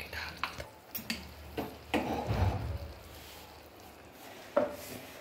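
Scattered light knocks and clinks of kitchenware being handled at an open aluminium pressure cooker, with a short low rumble about two seconds in.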